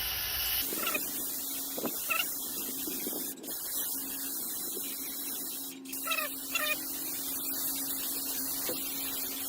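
Power sander running against a car fender, a steady hiss with a low motor tone, as 80-grit abrasive grinds away old cracked body filler down to the metal. The sound changes abruptly a few times.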